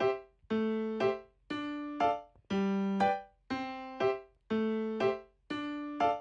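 Background music: a light keyboard tune, notes in a steady rhythm about every half second with short gaps between phrases.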